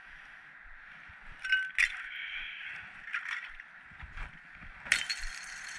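A few sharp clicks and clinks over a steady hiss: a pair close together about a second and a half in, a cluster around three seconds, and one near five seconds, after which the hiss grows brighter.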